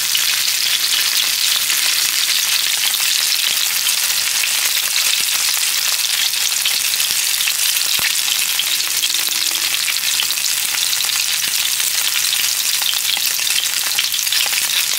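Food frying in a hot pan: a steady, crackling sizzle.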